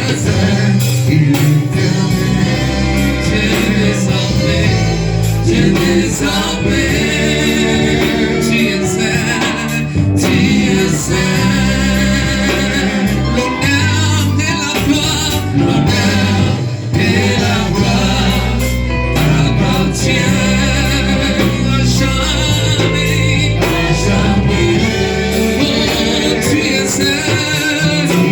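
Gospel music: singing over a band with a steady bass line.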